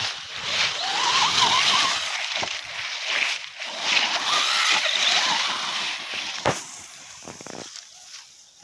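ZD Racing ZMT10 electric RC monster truck driving on grass: a motor whine that rises and falls with the throttle over tyre and drivetrain noise. There is a sharp knock about six and a half seconds in, and the sound fades toward the end.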